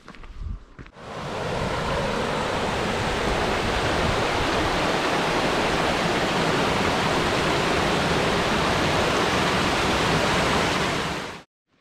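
Rushing water of a small mountain creek cascading over boulders in little waterfalls, a steady loud rush that comes in about a second in and cuts off sharply near the end. A few low thumps come before it.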